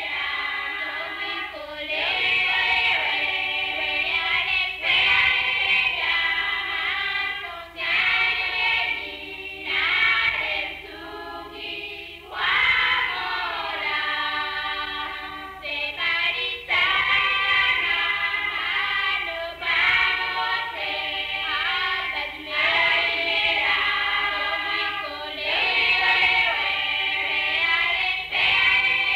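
A choir singing, phrase after phrase with short breaks between them.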